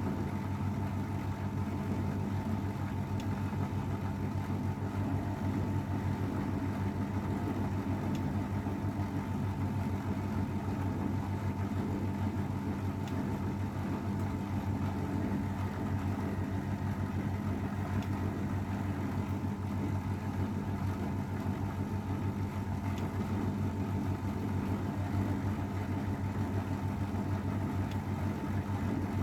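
Old AEG Öko_Lavamat 693 front-loading washing machine running through its cycle, a steady motor hum with a constant low drone.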